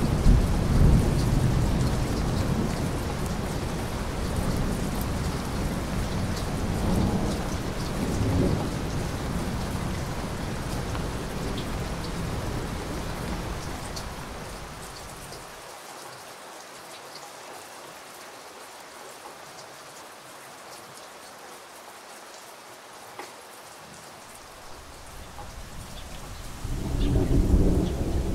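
Rain falling steadily with long rolls of thunder rumbling through the first half. The thunder dies away after about fifteen seconds, leaving only the hiss of the rain, and a fresh rumble of thunder builds near the end.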